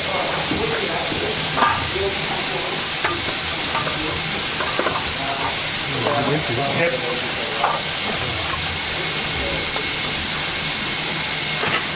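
Steady hiss of steam from a Baldwin 2-8-2 steam locomotive standing in steam, with a thin high tone held steadily through it.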